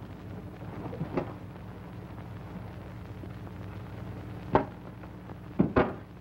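Steady low hum and hiss of an old film soundtrack, broken by a few sharp clicks: one about a second in, one near four and a half seconds, and two close together near the end.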